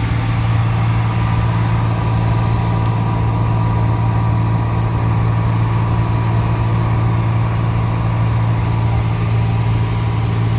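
Piper Saratoga's single piston engine and propeller droning steadily, heard inside the cockpit during an instrument approach, with a faint steady whine above the drone.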